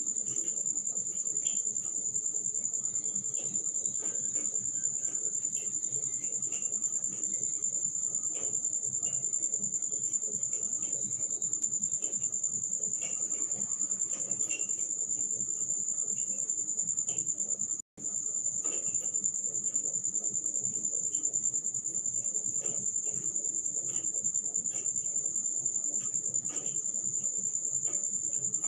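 Steady, high-pitched cricket trill that goes on without a break, over faint scattered clicks; the sound cuts out for an instant about two-thirds of the way through.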